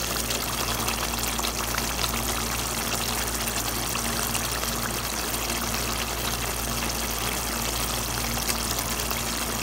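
Chicken tikka masala gravy simmering in a nonstick pan, a steady bubbling hiss, as thick cooking cream is poured in.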